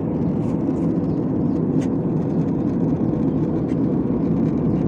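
Steady jet airliner cabin noise in flight: the even rumble of the engines and airflow heard from inside the passenger cabin beside a window.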